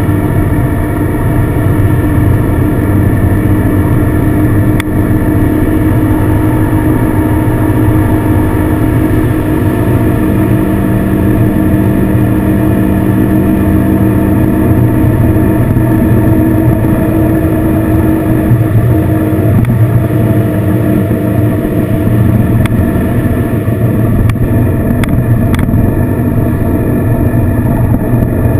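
Touring motorcycle's engine running at a steady cruise, with wind and road rumble at the rider's position.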